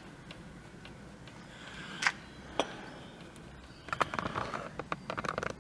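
Vintage Hercules bicycle brake lever being squeezed and released to work freshly sprayed WD-40 into its pivot and loosen it, the metal lever clicking. Two single clicks about two seconds in, then a quick run of clicks and rattles near the end.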